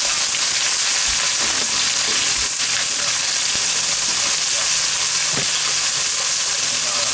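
Sweet corn kernels and Spam frying in hot oil in a pan, a steady loud stir-fry sizzle, with a few faint knocks.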